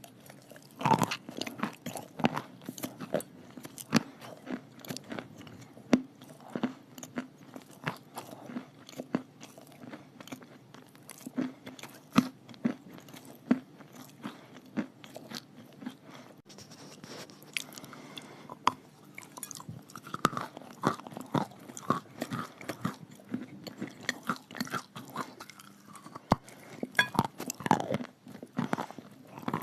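Chalk being bitten and chewed close to the microphone, mixed with clay paste: an irregular run of sharp crunches and chewing clicks, several a second.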